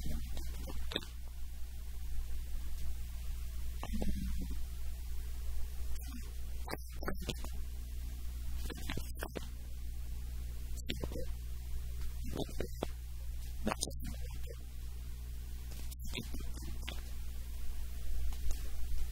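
A steady low electrical hum, with short clicks and knocks every second or two.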